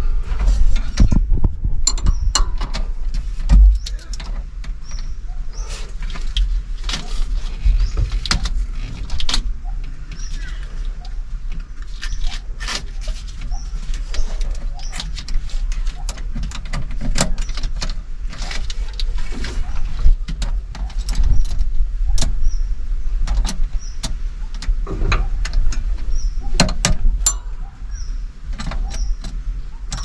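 Wrench and metal hardware clinking and tapping irregularly while a battery terminal bolt is being fastened, over a steady low rumble.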